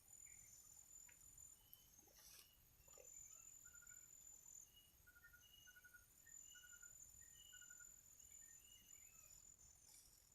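Faint outdoor insect chorus: a steady, high-pitched shrill of crickets or cicadas. Over it, a string of about ten short, evenly spaced calls, about two a second, begins a few seconds in, likely from a bird.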